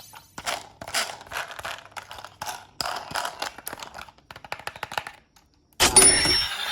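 A rapid, irregular series of clicks and knocks for about five seconds. A loud sound with steady tones starts abruptly about six seconds in.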